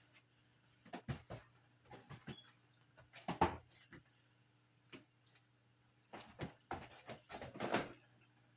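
Paper crinkling and rustling in short irregular bursts as a large diamond painting canvas and its paper sheet are handled, with the loudest crackle about three and a half seconds in and a busier stretch near the end.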